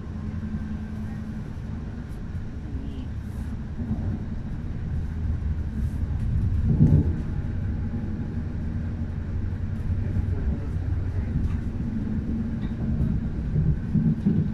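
Passenger train running at speed, heard from inside the carriage: a steady low rumble of wheels on rail that slowly grows louder, with a brief louder surge about seven seconds in.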